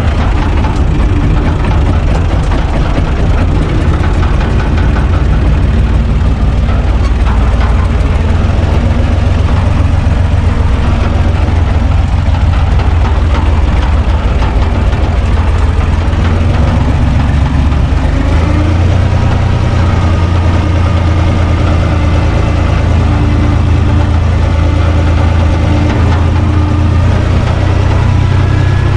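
Tractor diesel engine running steadily under way, heard loud from inside the cab. Its note steps up a little about two-thirds of the way through.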